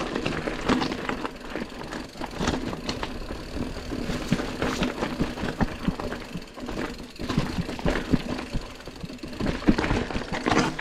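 Mountain bike rolling down a rocky trail: a dense run of knocks and rattles from the bike over stones, over a steady low rumble.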